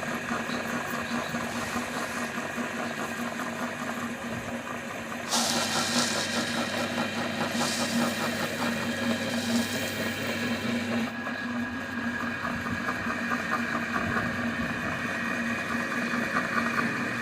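Electric meat grinder motor running with a steady hum. About five seconds in it gets louder as a harsher grinding noise joins it, the sound of the grinder crushing Mirinda fizzy ball candies, and this noise stays on over the motor.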